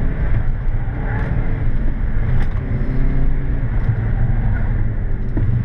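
Hyundai i30N's turbocharged 2.0-litre four-cylinder engine heard from inside the cabin while the car is driven hard, its revs climbing and dropping back several times over a heavy road and tyre rumble.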